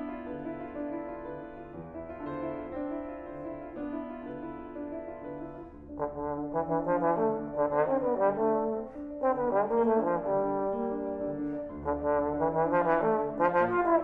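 Trombone playing with grand piano accompaniment in a slow classical piece: soft held notes at first, then about six seconds in it grows louder with a phrase of shorter notes moving up and down.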